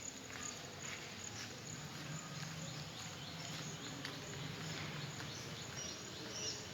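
Outdoor ambience: a steady background hiss and low hum, with scattered faint clicks and a few short high chirps near the end.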